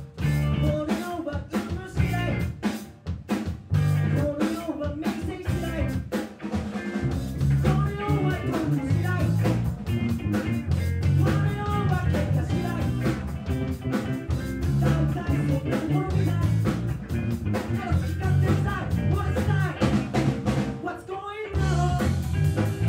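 Live rock band playing, with drum kit, electric bass and a male lead singer. The drums stand out most in the first several seconds, and the band breaks off for a moment near the end.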